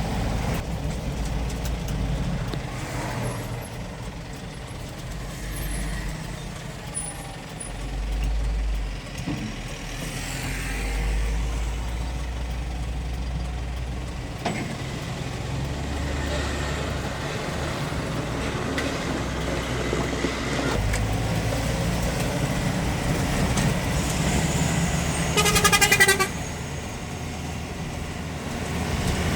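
Light truck's engine running on the road, its low drone rising and easing. A short, loud horn blast sounds near the end.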